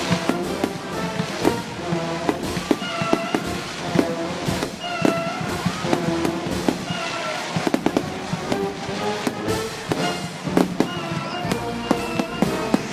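Aerial fireworks going off in repeated bangs and rapid crackling, dense in two flurries partway through, over steady music with held notes.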